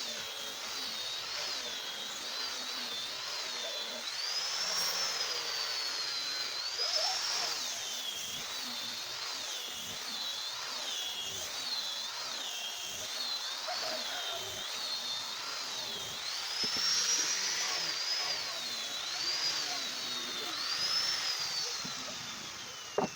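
High-speed power tool running with a high whine whose pitch rises and falls as the load changes. Near the end there is a click, and the whine then falls away as the tool winds down.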